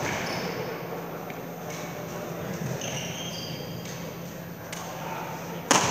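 Badminton rally on a sports-hall court: shoes squeak briefly on the floor several times, and a sharp racket strike on the shuttlecock near the end is the loudest sound.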